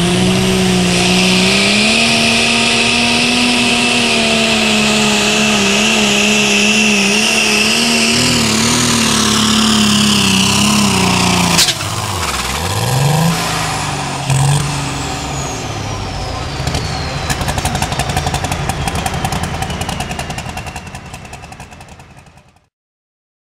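Light limited super stock pulling tractor's turbocharged diesel engine running at full throttle under load while pulling the sled, with a high whine over it. About halfway through there is a sharp crack and the engine note drops away. It then blips up twice, and the high whine falls slowly as the engine winds down. The sound fades out near the end.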